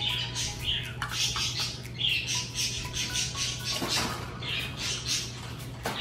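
Pet parrots chirping and squawking in short repeated calls, with light clicks of the plastic food cups against the wire cage.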